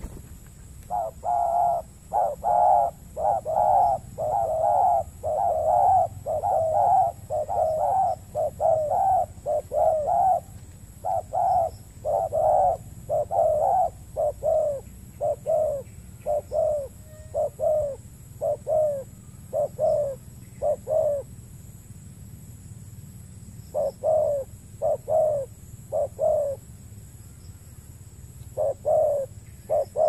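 Spotted doves cooing: a long run of short, repeated coos at a little over one a second, a pause of a few seconds, then more coos in short bursts near the end.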